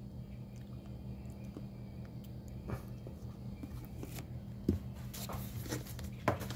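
Quiet handling of a paper brochure and table items, with a few short knocks and taps, the sharpest about four and a half and six seconds in, over a steady low hum.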